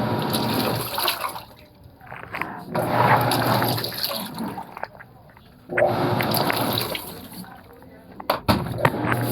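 Panasonic washing machine agitating in blanket mode: water churning and sloshing in swells of about a second and a half, with short pauses between them as the wash action stops and restarts, and a low motor hum under each swell.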